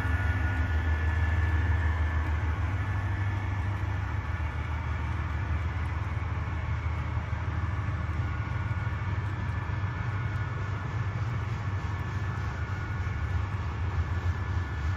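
HO scale model diesel locomotives' sound decoders playing diesel engine sound in dynamic braking: a steady low drone with a faint high whine, as the double-stack intermodal train rolls past.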